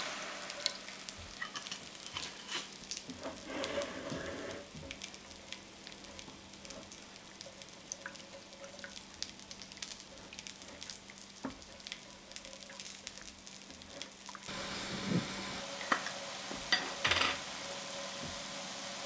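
Dry white wine sizzling and crackling in a hot pan with chopped shiitake mushrooms, many small pops as it bubbles and reduces. A few louder knocks come near the end.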